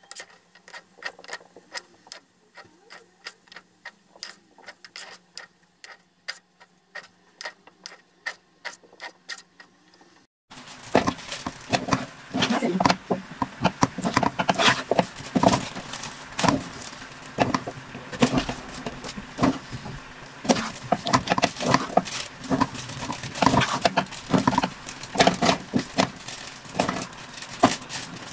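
Metal spoon scraping and knocking against a cooking pan as thick, very sticky glutinous rice (ube biko) is stirred and pressed, in a quick, irregular run of clicks and scrapes. About ten seconds in the stirring becomes suddenly louder and denser.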